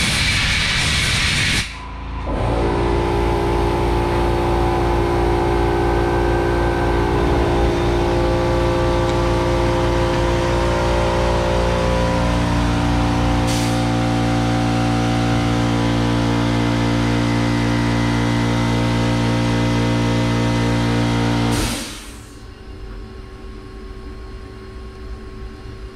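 A brief blast of compressed air from a blow gun at the start. Then a steady machine hum of several tones that shifts in pitch about halfway through and stops suddenly near the end, leaving a fainter hum.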